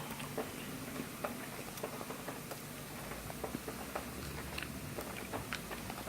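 A person chewing a bite of a mocha dessert bar: irregular wet mouth clicks and smacks, close up.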